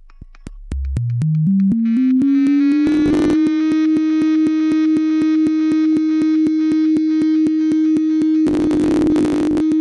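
A computer-generated sine tone from LabVIEW's Sound Output VIs, played through the sound card. It glides up in pitch as the frequency slider is dragged, then holds steady at a low hum-like pitch. Regular clicks come about five times a second, and crackly noise bursts in briefly about three seconds in and again for about a second near the end.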